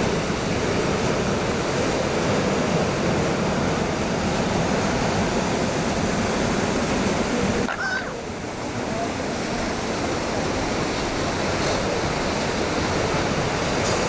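Pacific Ocean surf: waves breaking and washing in, a steady rushing noise. It dips briefly about eight seconds in.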